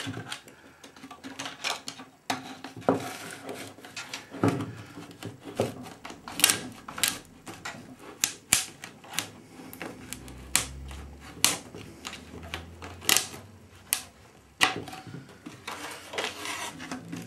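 Glass-and-epoxy moulded part and its mould being prised apart by hand with plastic wedges and a thin mylar strip: irregular sharp clicks and taps with some scraping as the part works free of the mould.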